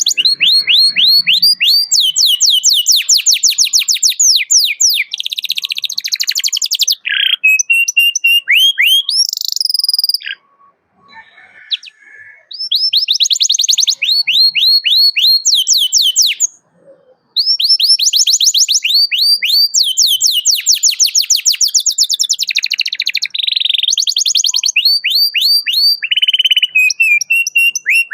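Domestic canary singing long bursts of rapid trills, each a fast run of repeated downward-sweeping notes, with a few held notes between runs. The song breaks off twice, briefly, around the middle.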